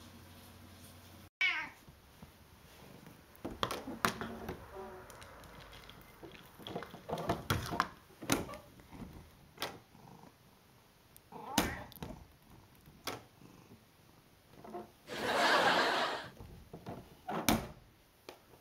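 A cat gives one falling meow about a second and a half in. A plastic pet door flap then clacks and knocks against its frame again and again as it is pushed and swings, and a short noisy rustle comes near the end.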